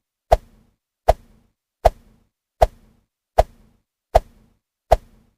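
A short, sharp knock sound effect repeated seven times at an even pace, about one every three-quarters of a second, each hit identical.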